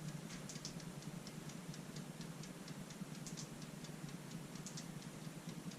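Toaster oven running on bake: a steady low hum with fast, even mechanical ticking, about five ticks a second.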